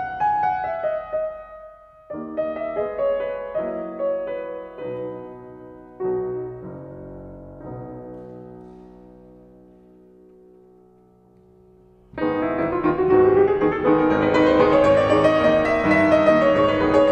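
Solo piano playing classical music: soft phrases, then a chord left to fade away for several seconds, and about twelve seconds in a loud, full passage begins.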